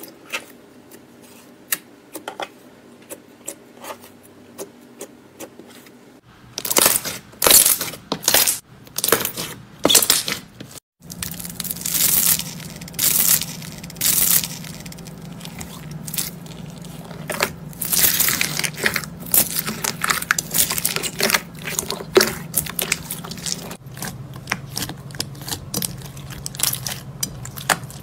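Hands squeezing and pressing slime, with sharp crackles, pops and crunches from the crunchy bits and foam beads mixed into it. The crackling is sparse at first, then turns loud and dense after about six seconds.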